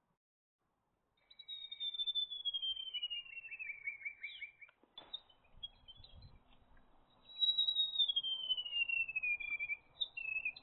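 A bird singing, starting about a second in: two long whistled notes that fall steadily in pitch, each lasting about three seconds, the first ending in a quick trill. A sharp click comes about five seconds in.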